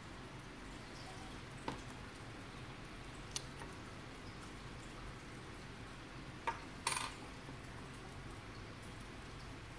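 A few small, sharp metal clicks and clinks as a watch's steel case back is lifted off and the watch and back are handled. The loudest is a short cluster of clinks about seven seconds in.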